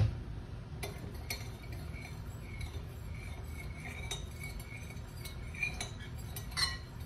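A few light clinks and taps of kitchen utensils against a cooking pot, spread out over a low steady background.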